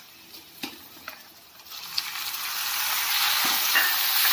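A spatula scrapes and taps a few times in a kadhai of frying onions. About two seconds in, chopped tomatoes go into the hot oil and a loud, steady sizzle starts and builds.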